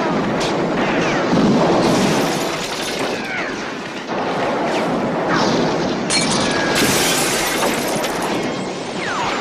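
Film sound effects of a massed gunfire barrage tearing into a house: dense continuous shooting with bullets smashing glass and wood, laced with short falling ricochet whines. Bright bursts of shattering come about two seconds in and again from about six to eight and a half seconds.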